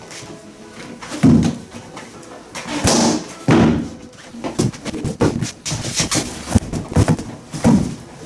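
Background music over repeated thumps and knocks as rubber balloons are pressed against a wooden board, with one balloon bursting.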